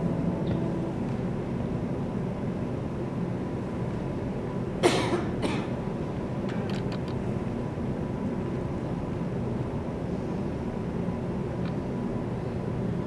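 Steady background hum of a theatre hall, with a short double cough about five seconds in, followed by a few faint clicks.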